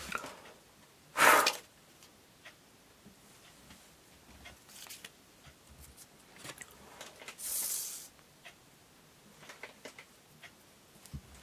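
A person blowing hard on a folded-paper origami sailboat to send it sliding across a table: two breathy blasts, a short loud one about a second in and a longer, hissier one about seven seconds in, with soft paper clicks and taps from handling the boat between them.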